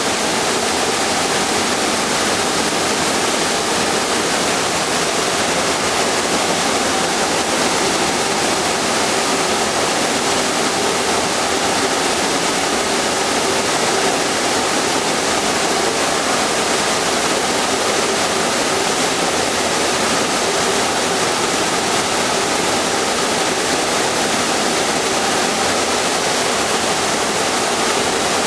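Steady, loud rushing noise of industrial equipment, like air or gas flow, running unchanged with no knocks or rhythm.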